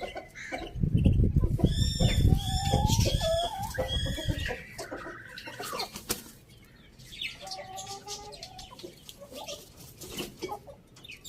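Chickens clucking and calling in short pitched notes, over a low flapping rumble of wings in the first few seconds. A longer, falling call comes about four to six seconds in, and fainter clucks follow later.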